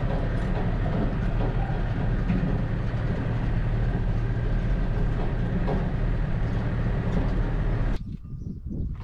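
Tractor engine running steadily, heard from inside the cab as a deep rumble with occasional light knocks and rattles. It stops abruptly about eight seconds in, leaving a much quieter outdoor background.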